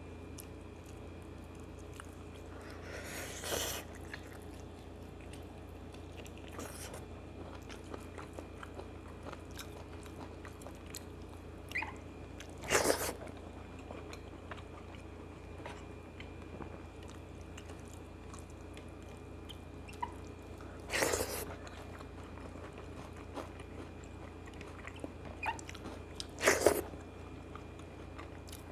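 Close-up eating sounds of a man eating rice and chicken curry by hand: quiet chewing with small mouth clicks, broken four times by a short, louder mouth noise several seconds apart, over a steady low hum.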